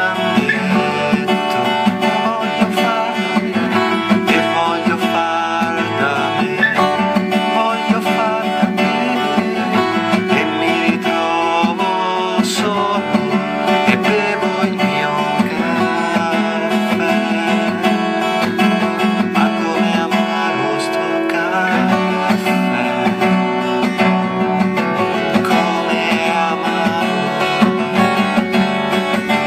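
Song accompaniment led by a steadily strummed acoustic guitar.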